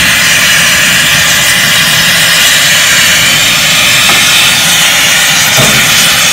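Oxygen-propane torch burning at full flame: a loud, steady hiss as it heats a melting dish of dental gold and silver.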